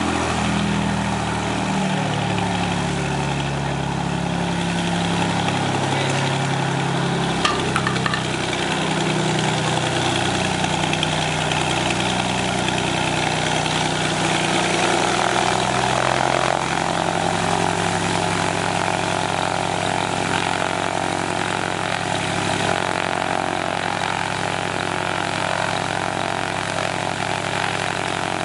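Light plane's propeller engine running as it taxis, the engine note stepping up and down in pitch through the first half and holding steadier from about sixteen seconds in. A short sharp click a little past seven seconds in.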